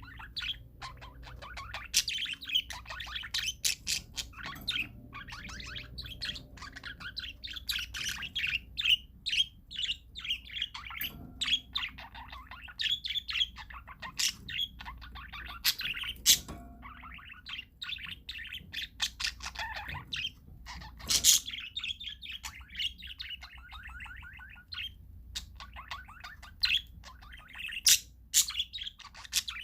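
Parakeets chattering: a dense stream of quick, overlapping chirps, with several louder sharp calls now and then.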